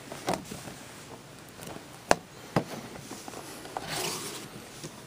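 A DVD box set's slipcover being pushed and worked over the box by hand: rubbing and scraping with a few sharp knocks, and a longer sliding scrape about four seconds in.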